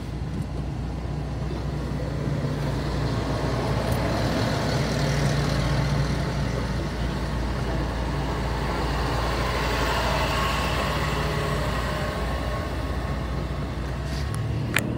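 Steady low vehicle engine hum heard from inside a car, swelling a little in the middle, with a sharp click just before the end.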